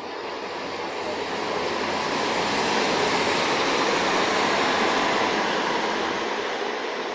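Electric passenger train passing close by on the tracks: an even rushing noise of wheels and rails that swells as it approaches, peaks mid-way, and fades as it moves off.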